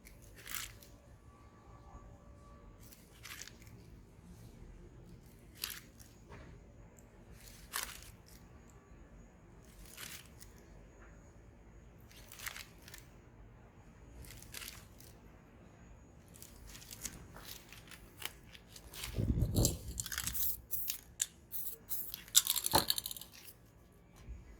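Spray paint art being worked: short hisses from a spray can about every two seconds, then louder rustling, crinkling and scraping of paper over the painted surface near the end.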